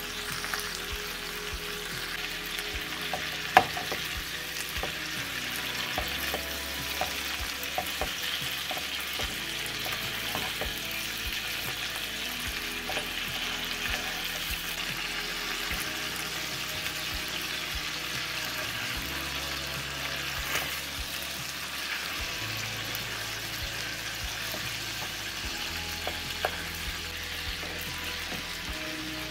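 Chicken drumsticks sizzling steadily in butter and olive oil in a nonstick frying pan on medium heat, browning. Short clicks of utensils against the pan or meat as the pieces are turned, the sharpest about three and a half seconds in.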